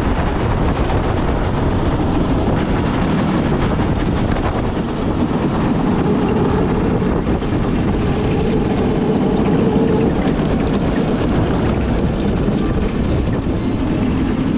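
Go-kart running on the track, heard from an onboard camera: a steady, dense rush of engine and wind noise. In the second half a faint tick repeats about once a second.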